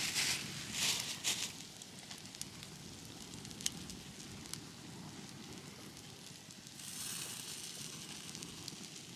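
Wood fire burning in a campfire stand, crackling with scattered sharp pops. There are loud hissing surges in the first second or so and a softer one about seven seconds in.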